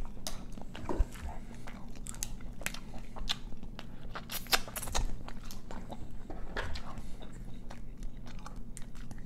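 Close-miked chewing and wet mouth sounds of someone eating Dungeness crab, with irregular small clicks and crunches, over a steady low hum.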